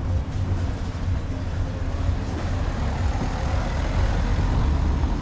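Steady low rumble of a heavy road vehicle running close by in a city street.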